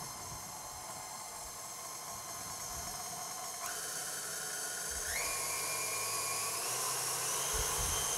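Electric stand mixer running with its wire whisk beating cream and sugar. Its steady motor whine steps up in pitch several times as the speed is turned up, growing louder.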